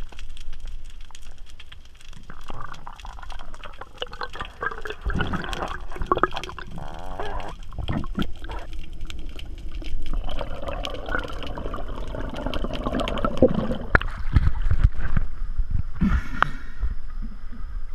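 Water heard through an underwater camera: muffled gurgling and sloshing with many scattered sharp clicks. Near the end the camera breaks the surface with a short splash.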